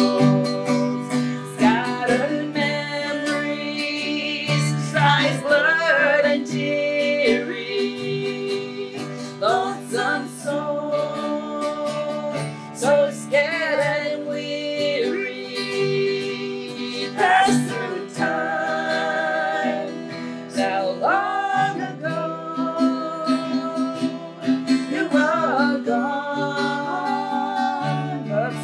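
Strummed acoustic guitar accompanying women singing a song.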